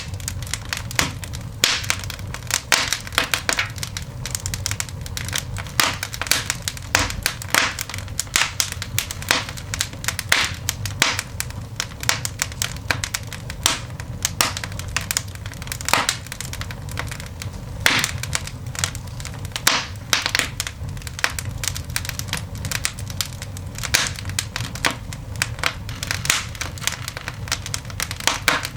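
Coal fire burning in a cast iron dog grate, crackling and popping with a dense, irregular run of sharp snaps over a low steady rumble.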